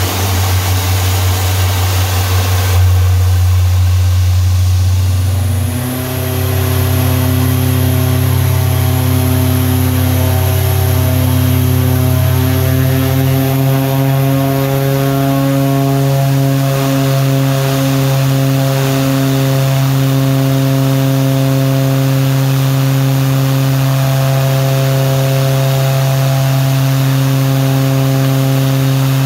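OV-10 Bronco's Garrett T76 turboprop engine running on the ground with its cowling open. About six seconds in, a high whine comes in and the engine's tone climbs in pitch over several seconds, then holds steady.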